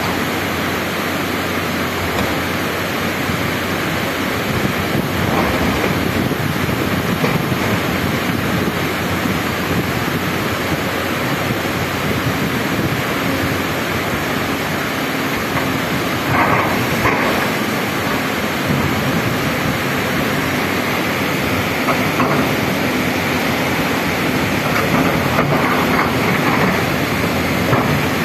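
Rushing stream water mixed with the steady drone of excavators' diesel engines working in the stream bed, with wind buffeting the microphone. A brief louder rattle comes about sixteen seconds in.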